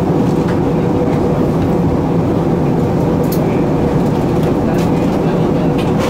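Steady cabin noise inside an Airbus A380 in flight: a constant rumble of airflow and the Rolls-Royce Trent 900 engines with a faint steady hum, and a few faint ticks in the second half.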